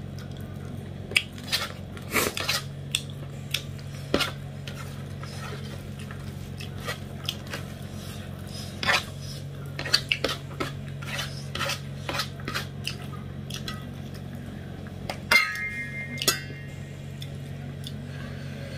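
Fingers scraping and tapping rice across a stainless steel plate, with scattered clicks against the metal, and a brief ring from the plate about fifteen seconds in. A steady low hum runs underneath.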